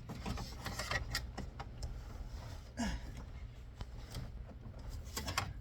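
Scattered light clicks and rubbing of hands working starter wiring into place, over a steady low hum.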